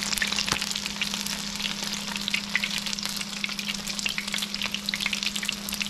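Battered grouper strips shallow-frying in hot oil in a nonstick skillet: a steady sizzle of fast, dense crackling pops. A steady low hum runs underneath.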